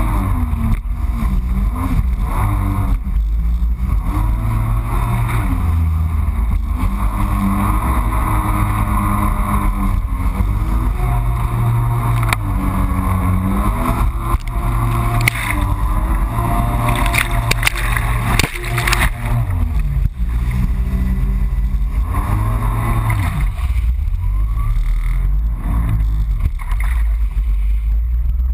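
Yamaha FX HO Cruiser WaveRunner's four-stroke engine running under way, its pitch rising and falling with the throttle, with water and wind noise and occasional sharp knocks on the hull.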